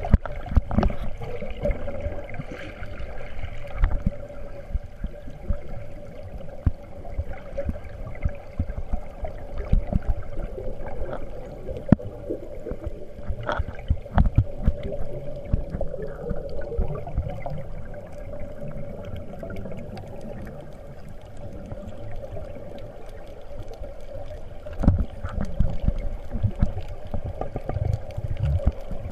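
Muffled underwater sound picked up by a submerged camera while snorkelling: water rushing and bubbling past it, with irregular low bumps and a steady hum underneath.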